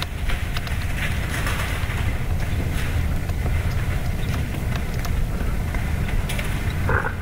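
Wind buffeting the microphone: a steady low rumble, with scattered light ticks and rustles over it.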